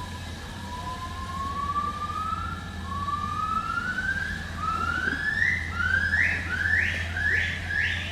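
Yellow-cheeked gibbon giving its great call: a series of whooping notes, each rising in pitch, that come faster, higher and louder as the phrase builds to a climax near the end. A steady low hum runs underneath.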